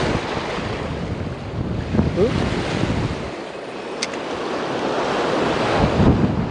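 Waves washing on a stony shore, with wind buffeting the microphone in low rumbling gusts; a single sharp click about four seconds in.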